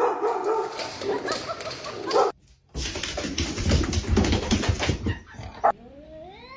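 A dog whimpering and yipping, with tapping and shuffling. After a short break, a long rising cat yowl starts near the end.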